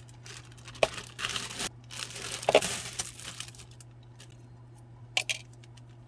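Clear plastic bag crinkling and rustling in several bursts over the first three seconds or so as a coiled power cord is pulled out of it, then two sharp clicks near the end.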